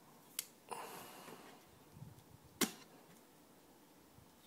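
Leatherman multi-tool being handled: two sharp metal clicks about two seconds apart, the second louder, with a short scraping rustle soon after the first.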